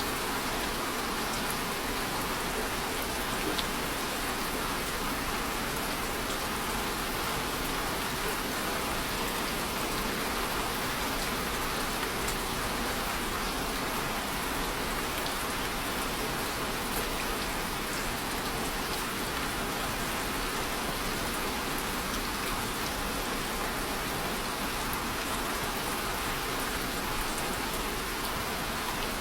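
Steady rain falling on a surface, an even hiss with scattered individual drops.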